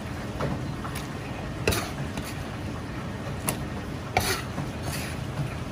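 Steady low rumble of a busy commercial kitchen, with a few sharp clinks of metal utensils or bowls scattered through.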